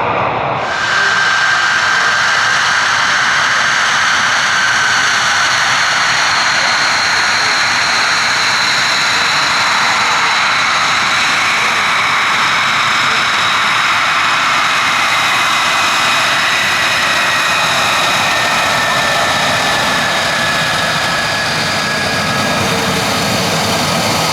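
Fighter jet engine whining at taxi power, a loud, steady jet noise with high tones that drift slowly lower in pitch. It swells brighter just under a second in.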